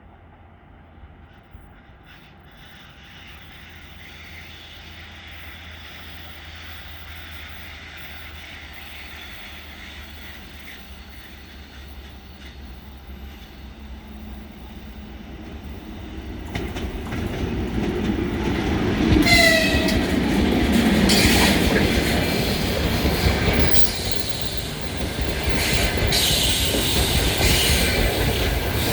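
A passenger train hauled by a 2ES4K electric locomotive approaches, getting slowly louder, then passes close by from about 17 seconds in. Its wheels clatter over the rail joints and squeal in short high tones on the winding curve.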